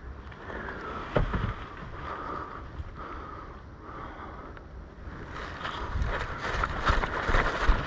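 Wind rumbling on the microphone with rustling movement. About five seconds in it grows louder, with a run of quick thuds and rustling like hurried steps.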